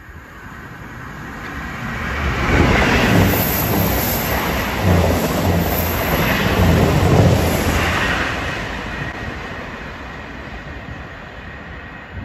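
A train passing along the main line: it grows louder over the first two to three seconds, stays loud with a heavy rumble until about eight seconds in, then fades away.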